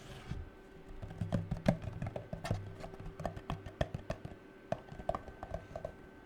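Fingernails tapping quickly and irregularly on hard objects: a rapid run of sharp clicks, several a second, some with a short ringing pitch, starting about a second in.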